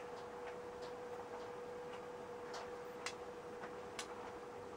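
Quiet, regular ticking, the stronger ticks about once a second with softer ones in between, over a faint steady hum.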